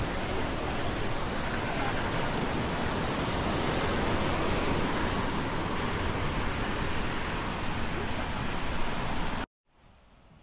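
Small waves washing up on a sandy beach, with wind buffeting the microphone; the sound cuts off suddenly near the end.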